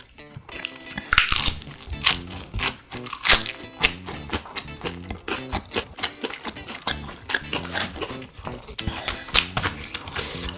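Background music with a stepping melody, over sharp crunches and clicks of chewing a fresh leaf wrap of spicy grilled duck.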